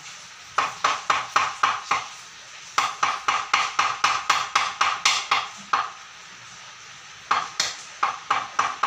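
Rapid metallic knocking on a heated, bent aluminium extrusion as it is tapped straight. The knocks come in three runs at about four a second, each with a short ring.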